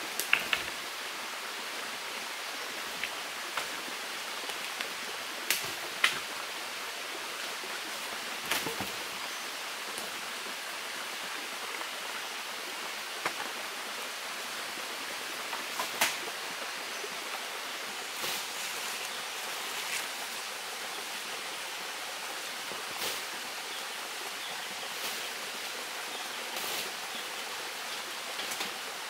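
Steady rush of running water, with scattered sharp snaps and crackles from sticks and dry leaves being handled on the forest floor.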